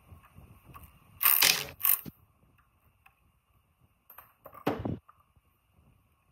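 Short blasts of compressed air from a blow gun, blowing out the valve ports of a rusty air-compressor cylinder head: a half-second hiss, a shorter one right after, and another about three seconds later.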